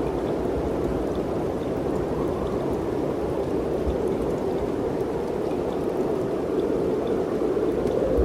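Wind blowing steadily: a continuous rushing noise that swells slightly, with faint scattered ticks over it.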